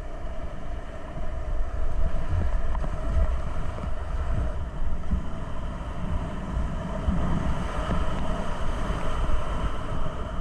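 Whitewater rapids rushing and churning around a kayak, heard as a dense roar with heavy rumbling buffeting on the microphone and paddle blades splashing through the waves.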